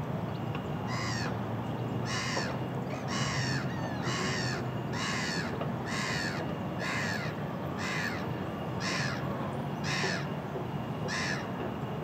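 Black-headed gull giving a series of about eleven harsh calls, roughly one a second, each falling in pitch at its end.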